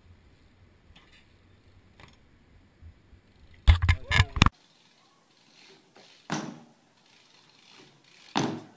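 A BMX bike clattering and knocking on paving stones: a loud, quick run of knocks under a second long, then two single thumps about two seconds apart.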